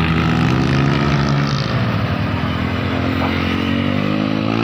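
Large bus engine running loud as it passes close by, its engine note shifting slightly in pitch.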